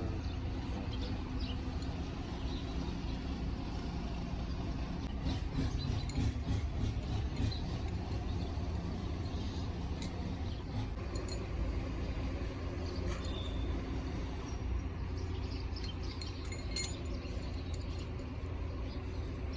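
Scattered light metallic clinks and taps of parts and hand tools being handled, over a steady low rumble.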